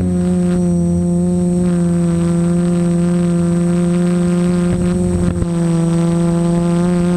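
Multirotor camera drone's electric motors and propellers in flight, a loud, steady buzz at an even pitch.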